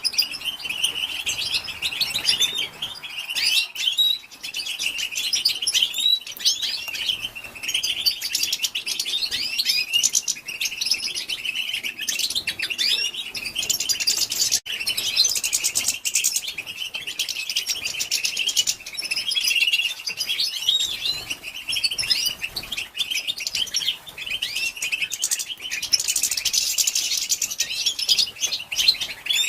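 Female European goldfinch calling: a continuous, rapid twittering of high chirps, clicks and short rising and falling notes, the 'betbeta' call used to stir male goldfinches into song.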